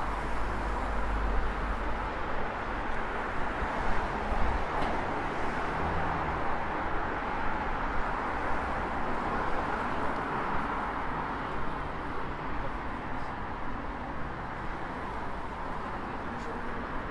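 City street ambience: road traffic running steadily past, with passersby talking. A deeper rumble of passing traffic is stronger in the first few seconds.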